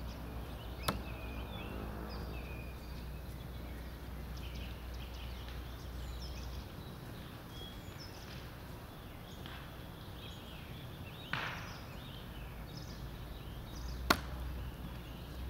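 A throwing knife strikes the target twice with a sharp thunk: once about a second in, and again, louder, near the end.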